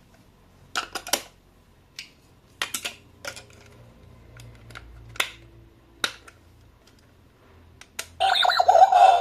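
Scattered sharp clicks and crinkles from handling packaging while unboxing, some in quick pairs. Music with a synthetic sung voice starts near the end.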